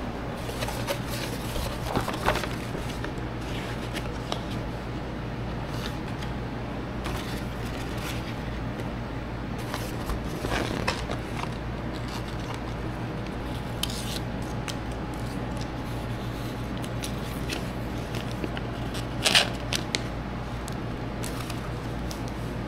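Large vinyl decal sheet and its plastic transfer-tape film rustling and crackling as hands lay it on a roll laminator's feed table and smooth it. A sharper crackle comes about three quarters of the way through, over a steady low hum.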